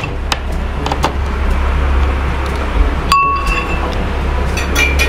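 Metal spoon and fork clinking and scraping against a plate and bowl while eating. There are scattered light clicks, a single ringing clink about three seconds in, and a few quick clinks near the end, over a steady low hum.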